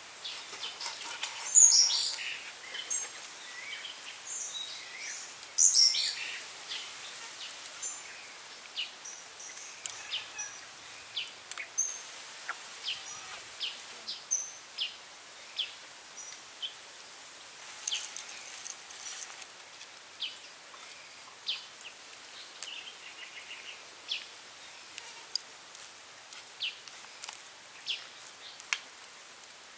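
Birds chirping outdoors: short high calls scattered throughout, a few louder ones in the first six seconds, over a faint hiss.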